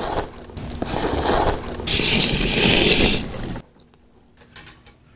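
A man slurping Pyongyang-style cold buckwheat noodles (naengmyeon): three slurps, the last the loudest and longest, ending about three and a half seconds in.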